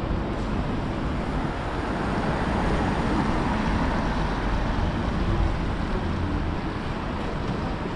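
Steady city street traffic noise from passing cars, swelling a little in the middle.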